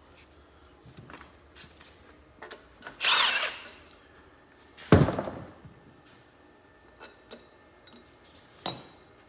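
Workshop clatter of tools and metal parts on a small-block Chevy engine being torn down: scattered light clinks, a short noisy burst about three seconds in, and a loud metallic clunk that rings on briefly about five seconds in.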